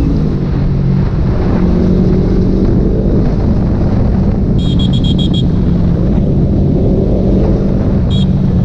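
Kawasaki Ninja 250 FI parallel-twin engine running steadily while the motorcycle cruises. About halfway through there is a quick run of about six short, high chirps, and one more near the end.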